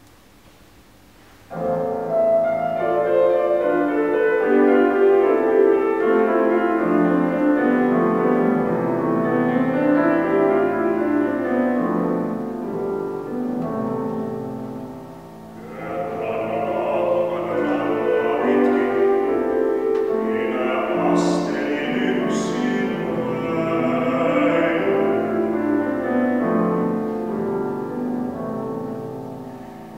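Grand piano playing a song introduction alone, starting about a second and a half in; about halfway through a baritone voice comes in singing a Finnish art song over the piano accompaniment.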